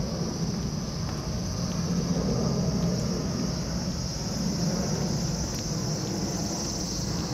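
Insects chirring in a steady high band, over a low, even rumble of background noise.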